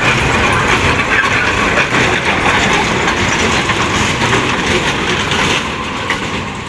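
Miniature ride-on park train running along its track close by, a steady mechanical rumble with a low hum that eases slightly as the train moves away.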